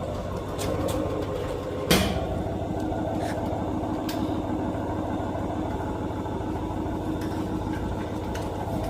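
A vehicle engine idling steadily, with one sharp knock about two seconds in and a few lighter clicks after it.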